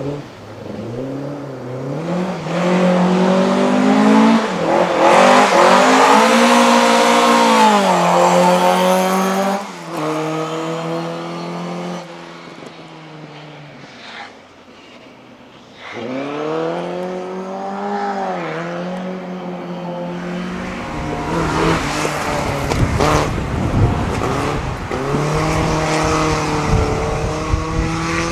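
Rally car engines driven hard, revving up and down through the gears, loudest about five to nine seconds in. After a quieter spell another car comes through, its engine rising and falling over a rough low rumble with sharp cracks in the last several seconds.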